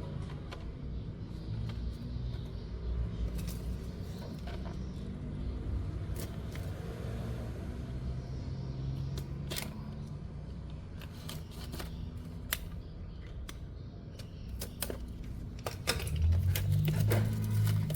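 Small clicks and taps of a box and its packaging being handled, over a steady low rumble; a louder low hum swells near the end.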